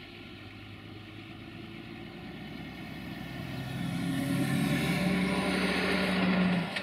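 A lorry's diesel engine running as it approaches on the road, growing steadily louder with tyre hiss, then dropping off sharply near the end.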